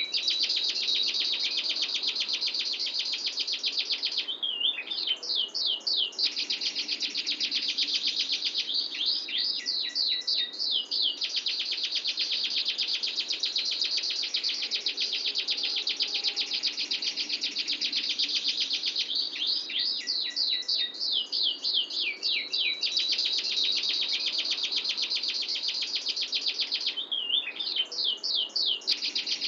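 Canary singing long rolling trills, very fast and tightly packed, each held for several seconds and broken every few seconds by short runs of quick falling sweeping notes.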